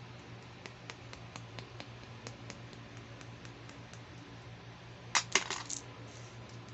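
Small hard-plastic toy comb handled with faint light ticks, then set down with a quick cluster of sharp plastic clacks about five seconds in.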